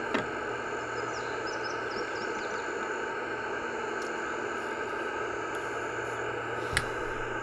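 Ham radio transceiver's speaker giving steady receiver hiss: open band noise on 6 meters with nobody answering the call. A single sharp click comes near the end, and faint bird chirps sound about a second in.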